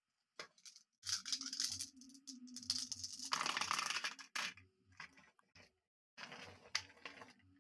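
Handling noise from glass marbles and plastic toy trucks: irregular clicks, clinks and rustles as marbles are scooped up in a hand and the toys are picked up and moved, with a denser rattle about three and a half seconds in.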